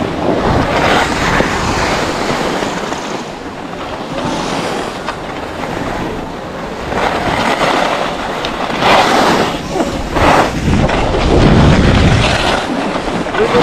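Skis sliding and scraping over groomed snow, with wind rushing over the microphone; a few sharper, louder scrapes about nine and ten seconds in.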